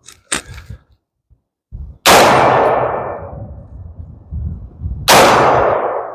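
Two shots from a .223 AR-15 rifle about three seconds apart, each trailing off in a long echo, with a couple of small clicks before the first.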